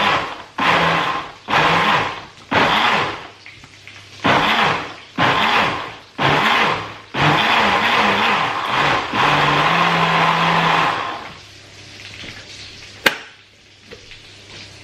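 Countertop jug blender pulsed again and again, puréeing roasted vegetables and tinned tomatoes into a sauce: about eight short bursts, each motor spinning up and winding down, then one continuous run of about four seconds before it stops. A sharp click follows near the end.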